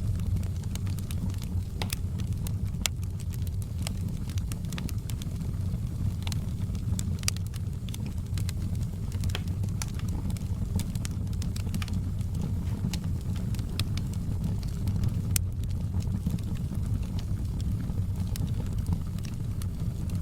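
Wood fire in a fireplace crackling: a steady low rumble of flames with frequent, irregular sharp pops and snaps of burning wood.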